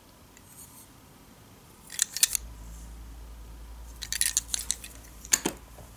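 Scattered light clicks and knocks of a small wooden toy car being turned over and handled in the fingers, in a few short clusters.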